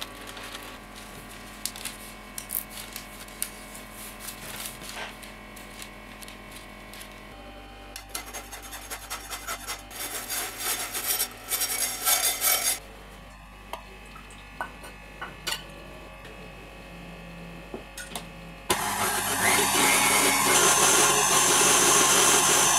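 Scissors snipping through parchment paper, then flour shaken through a sieve in a quick dense rattle. About three-quarters of the way through, a KitchenAid stand mixer switches on suddenly, its wire whisk running steadily in the steel bowl.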